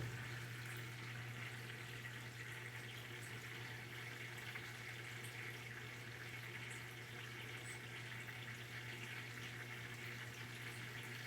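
Water pouring steadily into the drum of a Brastemp BWK 11 washing machine as it fills before agitating, over a steady low hum, with a short click at the very start.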